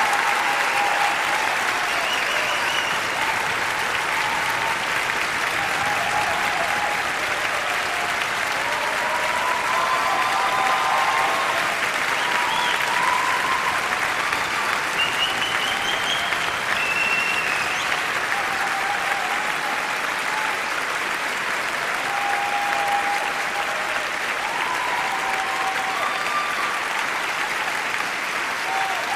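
Large audience applauding steadily, with scattered voices calling out over the clapping.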